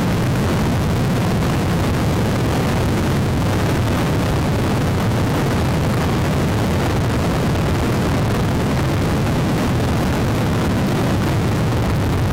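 Twin T53 gas-turbine engines of a 51-foot Outerlimits powerboat running at high speed, a loud, steady, deep rush with no change in pitch.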